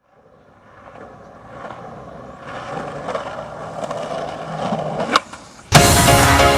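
Skateboard wheels rolling on pavement, growing steadily louder as the board comes closer, with one sharp clack about five seconds in. Electronic music with a steady beat starts abruptly near the end.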